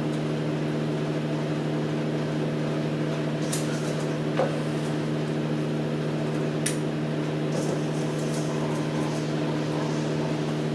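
A steady appliance hum runs at a constant level throughout, with a few faint clicks as raw potato slices are set down in a glass baking dish.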